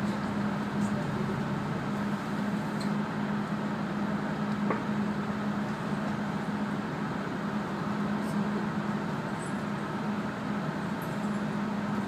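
Steady cabin noise inside a Kanachu city route bus: the engine running with a constant low hum, and a broad rumble of running noise around it.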